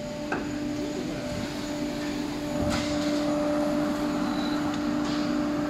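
ATC CNC router machine running with a steady humming tone over machine noise. There is a click just after the start and a short burst of noise about halfway through, after which the machine gets a little louder.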